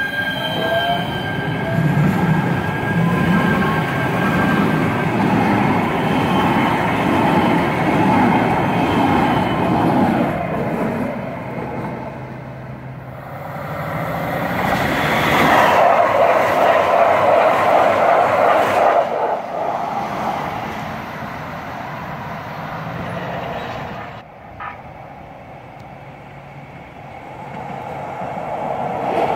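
Kinkisharyo P3010 light-rail train rolling past at close range, a thin wheel squeal fading over the first few seconds into a steady rumble of wheels on rail. A second, louder swell of passing-train noise comes about midway, then the sound drops off, with a single click, and swells again near the end as another train approaches.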